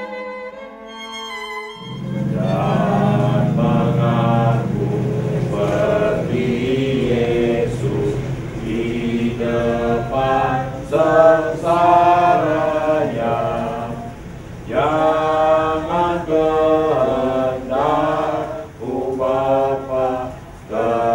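A slow violin melody that cuts off about two seconds in, then a small group of mourners singing a hymn together in unaccompanied phrases, with brief pauses for breath between lines.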